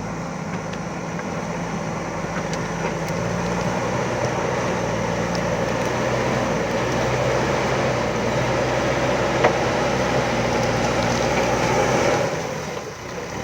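JCB backhoe loader's diesel engine running steadily under work, with one sharp knock about two-thirds of the way through. The engine note dips briefly near the end and then comes back up.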